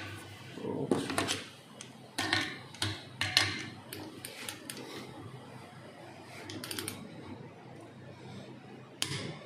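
Ratcheting torque wrench tightening the cap nut of a Delphi common-rail diesel injector held in a steel fixture: scattered sharp metal clicks and knocks, with a quick run of ratchet clicks about two-thirds of the way through. The cap is being brought to 45 Nm, the torque at which the armature stays free rather than jamming.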